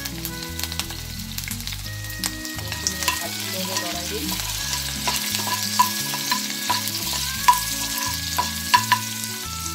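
Prawn heads sizzling in hot mustard oil in a frying pan, with a steel ladle clinking and scraping against the pan as they are stirred. The ladle's sharp knocks come more often and louder in the second half.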